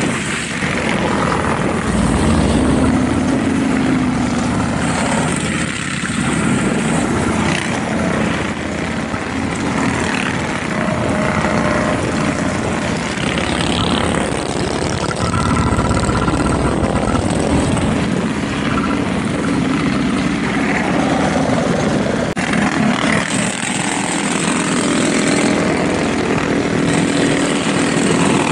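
Small gasoline mini bike engines running without a break, their low pitch shifting as they rev.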